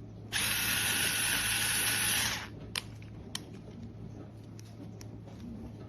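A JENABOM 3.6V cordless electric screwdriver running for about two seconds, starting and stopping abruptly, followed by a couple of light clicks.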